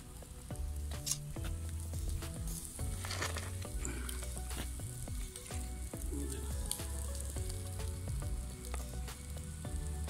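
Background music with a steady bass and sustained chords, over a continuous fine sizzling crackle.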